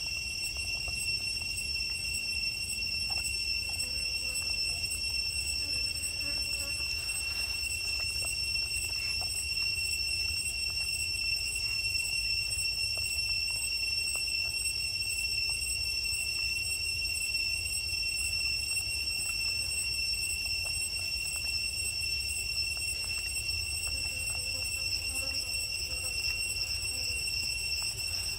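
Steady, unbroken high-pitched insect drone, with a low rumble underneath.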